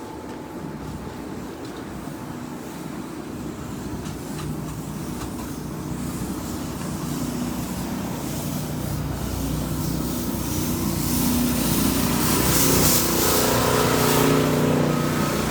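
A motor vehicle's engine hum, growing steadily louder as it draws near and loudest toward the end, with a rising hiss of tyres or wind over it.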